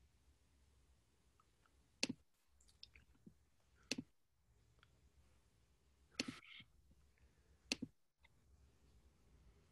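Four sharp clicks, a second and a half to two seconds apart, over near silence. The third has a brief rustle after it.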